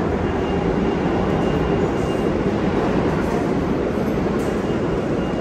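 New York City subway train running in the station: a steady rumble with a faint high whine that comes and goes.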